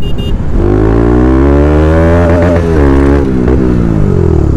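Single-cylinder motorcycle engine heard from the bike itself, its pitch climbing steadily under hard acceleration for about two seconds, then falling through the last second or so as the throttle is rolled off.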